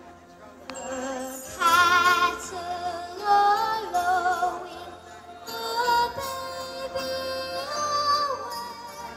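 Female choir singing a Christmas song with musical accompaniment, holding long notes with strong vibrato.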